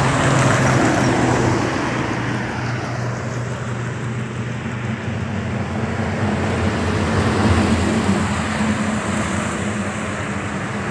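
Royal Enfield Classic 350's single-cylinder engine running steadily at road speed, under a broad rush of wind and road noise that is louder in the first couple of seconds.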